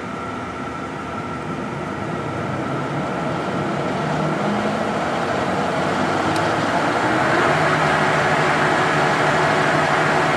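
American Pacemaker 20-inch engine lathe spinning its 18-inch four-jaw chuck up to speed: the headstock gearing and 10-horsepower motor whir grows louder over the first several seconds, then runs steadily.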